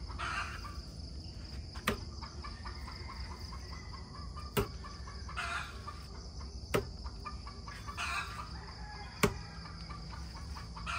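A hen clucking now and then over a steady high drone of insects. Sharp clicks come about every two to three seconds and are the loudest sounds.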